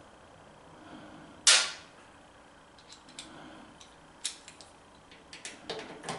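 One sharp metallic snap about a second and a half in, a socket being clicked onto a ratchet handle, followed by a few light metal clicks from the hand tools being handled.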